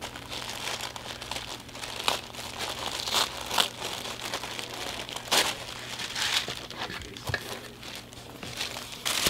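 Tissue paper wrapping being pulled open and unfolded by hand: continuous crinkling and rustling, with a few sharper crackles as it is pulled apart.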